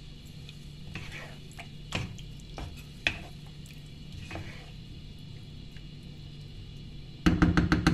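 Wooden spoon stirring chicken in a thick yogurt gravy in a nonstick pan, with a few sharp taps of the spoon against the pan over a steady low hum. A loud burst of sound cuts in near the end.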